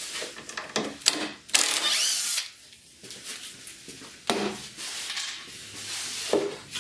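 Cordless drill-driver backing screws out of plywood: a few knocks as the bit is set, then a short burst with the motor spinning up about two seconds in. In the second half, wood scrapes and rubs as the loosened piece is worked off the board.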